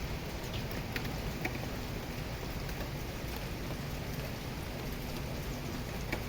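Rain falling steadily, with a few sharp drips or drop impacts standing out, one about a second in and another about a second and a half in.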